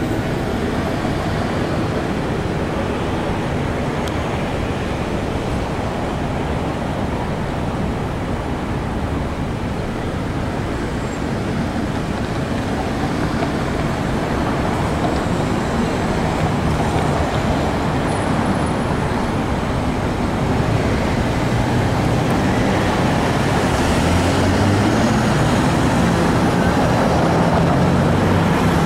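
Steady road traffic noise that grows slowly louder in the last third as a Flexity low-floor streetcar approaches, with a low steady hum coming in.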